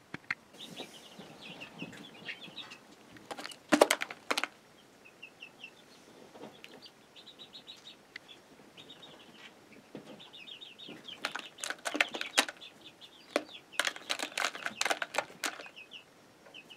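Rustling and clicking handling noises in straw bedding, loudest about four seconds in and again in a busy stretch later on, with short runs of rapid high chirping recurring between them.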